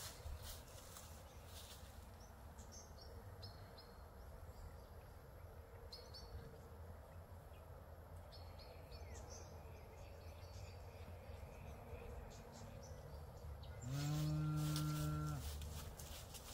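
A bull bellows once near the end, a single low moo lasting about a second and a half. Earlier there are faint bird chirps over a steady low rumble.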